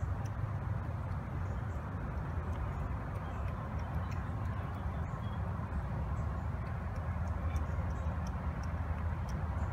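A cat and her kittens eating from food dishes, with faint, irregular clicks of chewing and lapping over a steady low rumble.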